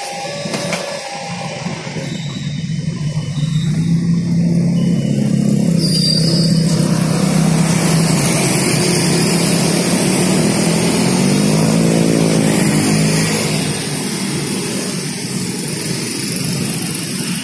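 Road traffic of motorcycles and cars pulling away together across a railway level crossing, engines revving and rising in pitch as they accelerate. The traffic grows loud a few seconds in and eases off near the end.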